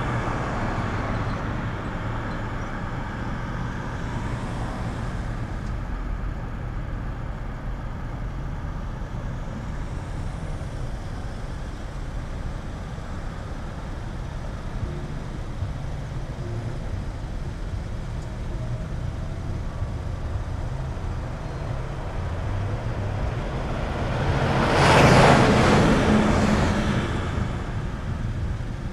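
Road traffic noise with a steady low engine rumble while cars sit stopped in a queue. About 25 seconds in, a vehicle passes close by, swelling loud and then fading.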